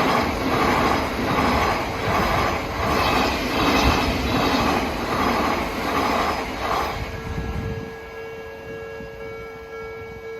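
Odakyu Odawara Line train passing over a level crossing, its wheels clattering in an even rhythm for about seven seconds. After the train has passed, the crossing's warning bell rings on alone and stops near the end.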